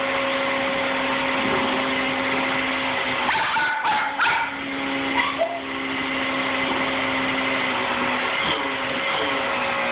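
Canister vacuum cleaner running with a steady motor hum. About four seconds in, the motor note is briefly disturbed and a dog gives a few short barks.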